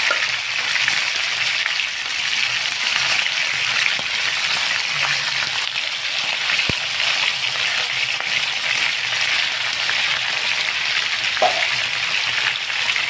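Chicken wings sizzling steadily in hot oil in a nonstick frying pan, with a spatula turning the pieces and a single sharp knock about halfway through.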